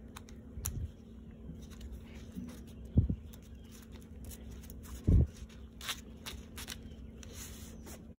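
Leather bag strap and brass buckle handled with nitrile-gloved hands: small clicks and rustles as the strap is worked through the buckle, with two dull thumps about three and five seconds in.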